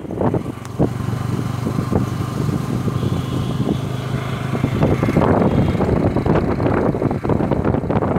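Motorcycle engine running at a steady speed while riding, with wind rushing across the microphone that grows louder from about five seconds in.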